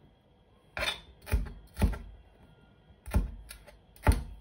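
Kitchen knife chopping a bell pepper on a chopping board: six sharp knocks of the blade against the board, in two groups of three with a pause between.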